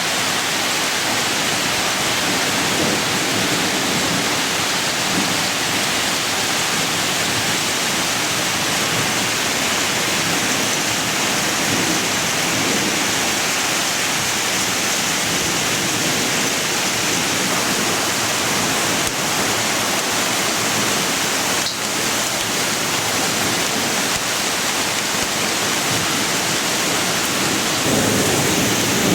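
Heavy rain pouring down in a steady, loud downpour during a thunderstorm.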